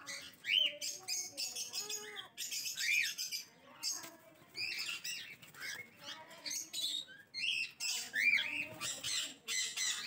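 Aviary birds chirping and squawking: many short calls overlapping throughout, several of them quick rising-and-falling notes.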